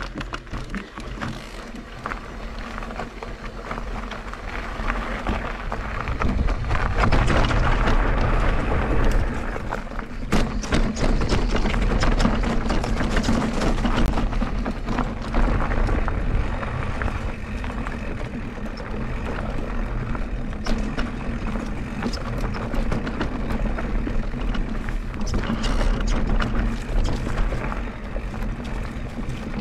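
Mondraker Crafty Carbon mountain bike ridden over a rough trail: wind rumble on the microphone, tyre noise and many small knocks and rattles from the bike. It grows louder over the first six seconds or so.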